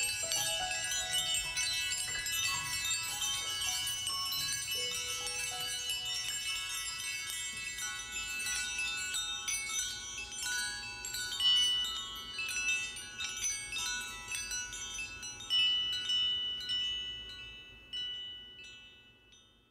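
Hand chimes ringing many overlapping, sparkling high notes as the song's closing music fades out, with a few lower held notes in the first seconds. It dies away to silence at the very end.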